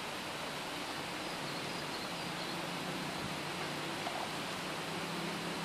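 Steady outdoor background hiss with a faint low hum underneath and no distinct event.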